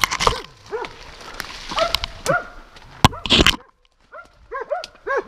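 Hunting dogs barking and yelping in quick, high, repeated calls, baying a wounded wild boar hidden in the thicket. A loud crackle of brush breaks in about three seconds in, followed by a short lull in the barking.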